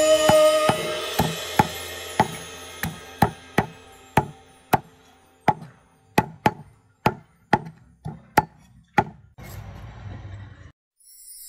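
Knife chopping on a cutting board: a run of sharp strikes, about two a second, that stops about nine seconds in. Background music fades out under the first few strikes.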